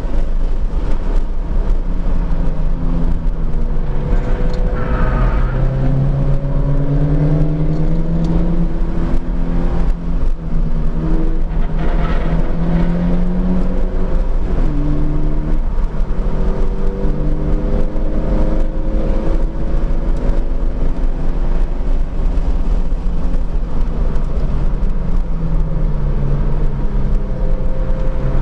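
Subaru BRZ's flat-four engine heard from inside the cabin at track speed, its pitch climbing again and again through the gears, falling around the middle and again near the end. Steady road and wind noise runs underneath.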